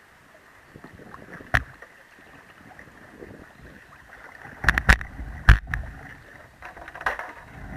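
Plastic whitewater kayaks knocking and scraping against a concrete bank as a boat is launched, with water sloshing around the hulls. There is one knock early on and a cluster of loud hollow thumps about five seconds in.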